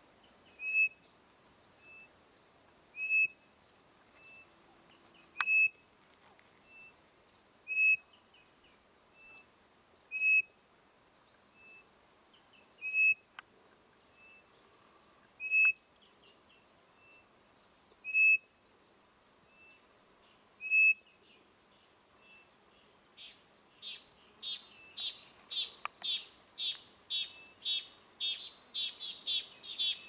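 Codorniz (quail) calls traded between a horn bird-call whistle and the bird itself. Single whistled notes come about once a second, loud ones alternating with fainter ones. Near the end there is a fast run of chirping notes.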